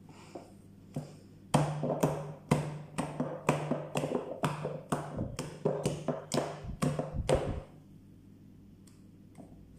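A hand beating soft, very sticky sfenj yeast dough in a glass bowl: wet slaps about three a second, stopping about eight seconds in.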